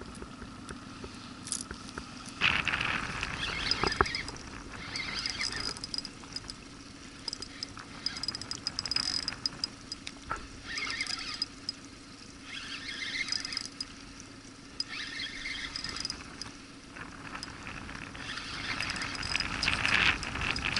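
Spinning reel being cranked in spurts, a whirring retrieve of a lure that starts and stops every second or two over a steady low hum.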